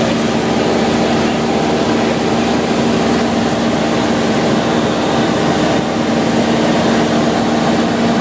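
Single-engine light aircraft's engine and propeller droning steadily in flight, heard from inside the cockpit as an even, loud hum over a rushing noise.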